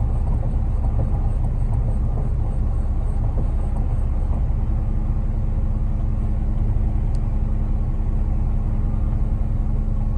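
Concrete mixer truck's diesel engine running steadily: a low rumble with a constant hum that does not change in pitch.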